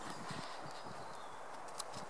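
Paws of an Alaskan Malamute puppy and a Tibetan Mastiff thudding and scuffling on dry dirt and grass as they play, with a sharp click near the end.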